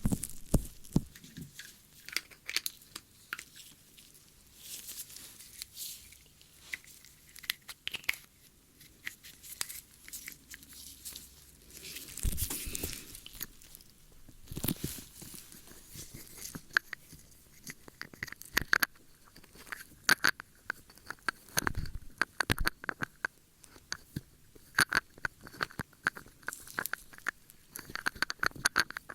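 Close-up ASMR ear-cleaning sounds: a tool scratching and rubbing at an ear or microphone, giving irregular crackles and short scrapes with brief quieter gaps.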